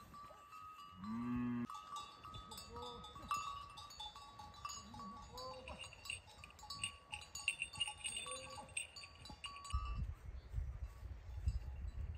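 Cattle wearing cowbells: the bells clink and jangle irregularly, and a cow gives one short low moo about a second in. A low rumble joins near the end.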